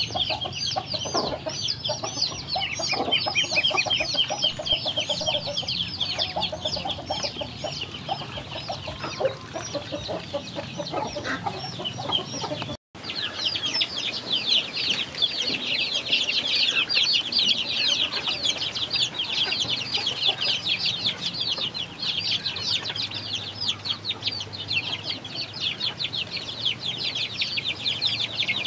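A crowd of ducklings peeping rapidly and without pause as they feed, with some lower calls mixed in. The sound drops out for a moment about 13 seconds in, then young chickens keep up a dense, high peeping as they peck feed from a basket.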